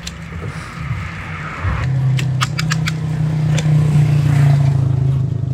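A motor vehicle's engine hum, starting about two seconds in and growing louder, with a few sharp clicks in the middle.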